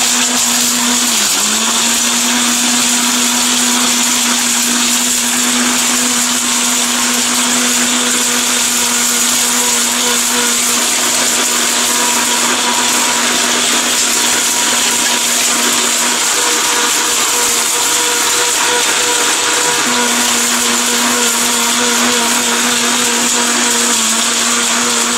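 ORPAT 1600-watt blender with a stainless-steel jar running at full speed, grinding hard dried turmeric pieces into powder: a loud, steady motor whine over dense grinding noise, the pitch dipping briefly about a second in.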